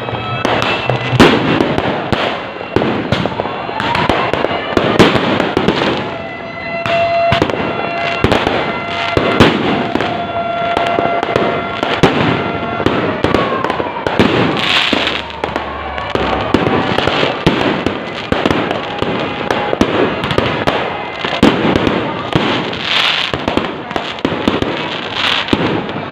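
Fireworks going off overhead in quick succession: a dense, irregular run of bangs, pops and crackles that never lets up.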